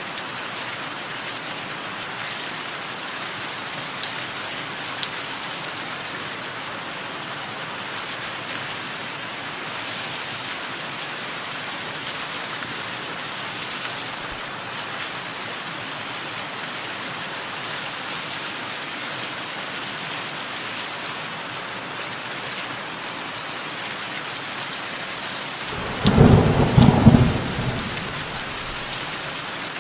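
Steady rain falling, with small birds giving short high chirps and brief trills every second or two. Near the end a loud roll of thunder rumbles for about two seconds.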